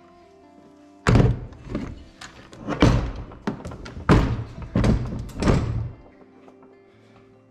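Background music with a run of about eight loud knocks and thunks, spread from about a second in to about six seconds in.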